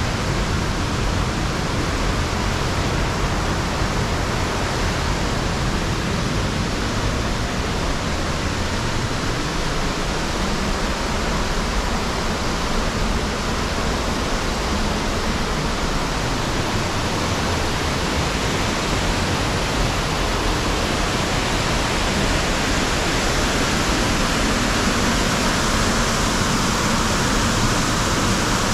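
Buttermilk Falls, water pouring and cascading over rock in a steady, dense rush that grows slightly louder near the end.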